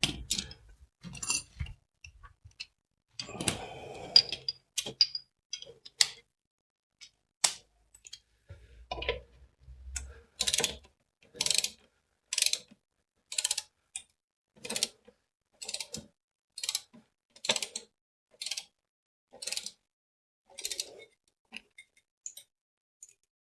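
Ratchet wrench worked back and forth, tightening an engine mount bolt in short strokes. There is some tool clatter first, then about a dozen even ratcheting strokes roughly once a second.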